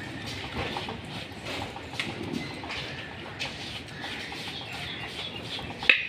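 Birds calling and clucking over a busy outdoor background, with one sharp click just before the end.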